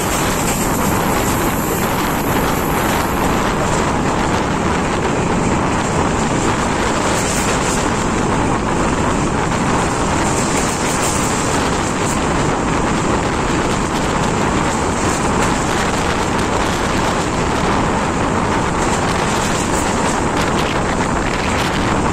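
S14 diesel multiple-unit train running at speed, heard from an open window: a steady rush of wind on the microphone over the train's running noise.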